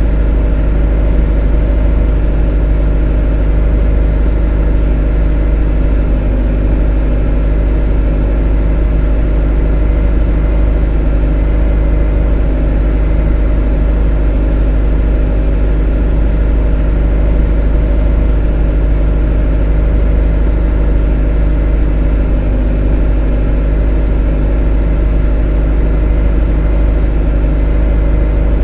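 A motor running steadily at a constant speed: a deep, even hum with a layered drone above it, unchanging throughout.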